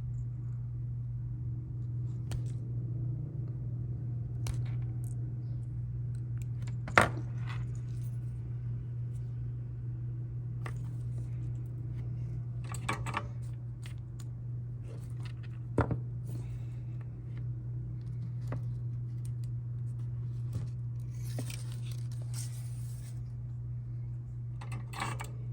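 Small clicks, snips and scrapes of hand tools working an audio cable and RCA plug, a few sharp ticks spread out and a short scratching stretch near the end, over a steady low hum.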